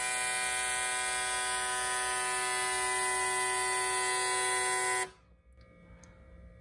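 CT-150 fuel injector tester running a timed flow test, two fuel injectors pulsing rapidly into graduated cylinders with a steady electric buzz. The buzz cuts off suddenly about five seconds in as the 10-second test ends.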